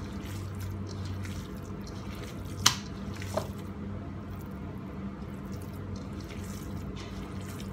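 Bare hands kneading and rolling a wet ground-beef and soaked-bread mixture in a bowl: soft squishing, with a sharp wet click about two and a half seconds in and a smaller one soon after, over a low steady hum.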